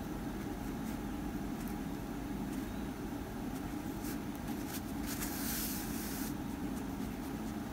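Steady low background hum with faint handling rustles and clicks; a little past five seconds in, a soft hiss about a second long as the yarn tail is drawn through the crocheted stitches with a needle.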